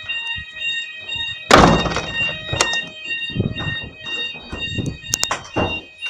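Fire alarm base sounders sounding an alternating two-tone alarm during a weekly test, over loud thumps and rustling, the loudest thump about a second and a half in.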